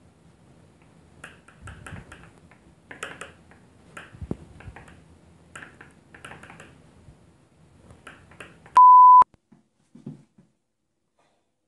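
Faint taps and rustles of a pencil and paper being handled, then, about nine seconds in, a loud, steady, single-pitched censor bleep lasting about half a second.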